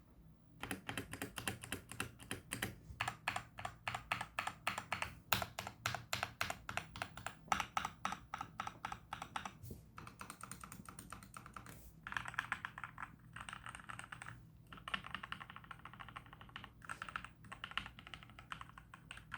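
Computer keyboard being typed on quickly, keys clicking in fast runs broken by short pauses, with a faint steady hum underneath.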